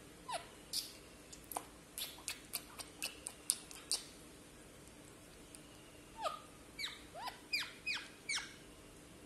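Lutino Indian ringneck parakeet giving short, high chirps that slide sharply in pitch while beak-playing at a person's mouth: a quick run of about ten in the first four seconds, then after a pause another run of about six.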